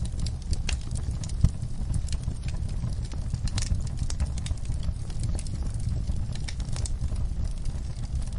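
Wood fire in a fireplace crackling: irregular sharp pops and snaps over a steady low rumble of burning, with one louder pop about a second and a half in.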